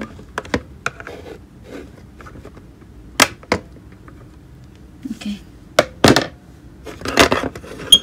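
Sharp plastic clicks, snaps and scrapes as a flat screwdriver and fingers pry open a smoke alarm's battery compartment door. There are several separate knocks, the loudest a pair about three seconds in and a longer cluster around six to seven seconds in.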